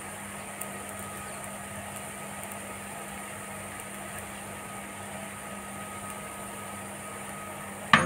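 Steady low hum and hiss of a galette cooking in a non-stick frying pan over a lit gas burner. Just before the end, a sudden clatter of a utensil scraping and knocking against the pan.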